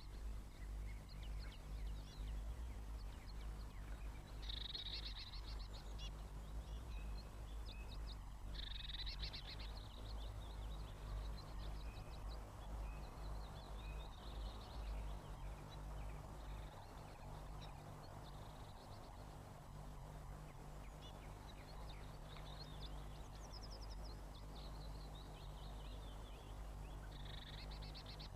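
Small garden birds calling faintly in short bursts of rapid high chirps and trills, several seconds apart, over a steady low hum.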